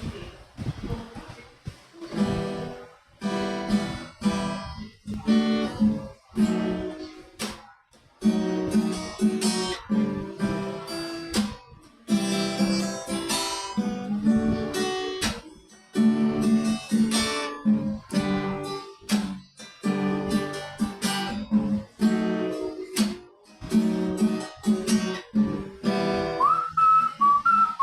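Acoustic guitar strummed in rhythmic chords. Near the end, whistling of a melody starts over the guitar.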